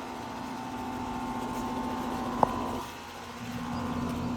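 A steady mechanical hum from a motor or engine, with a single sharp click about two and a half seconds in.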